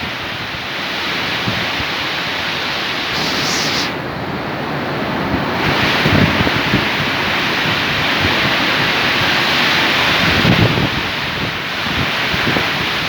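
Heavy wind blowing in gusts: a continuous rushing that swells and eases, with stronger low buffeting gusts about six seconds in and again about ten and a half seconds in.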